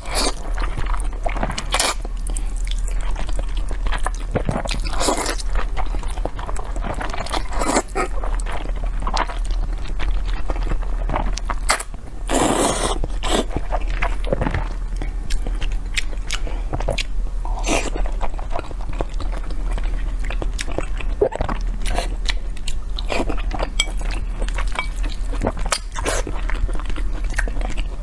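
Close-miked slurping and chewing of spicy instant fire noodles, with wet mouth clicks and smacks and a few longer slurps, the longest about halfway through. A steady low hum runs underneath.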